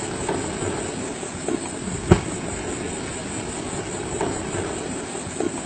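Kelud volcano erupting: a steady rushing roar, with a sharp crack about two seconds in and a few smaller cracks.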